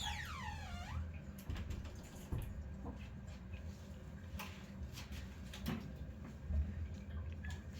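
Gas central-heating boiler running after its faulty zone valve was replaced: a low steady hum with scattered light clicks and no heavy banging. A short whistle falls sharply in pitch in the first second.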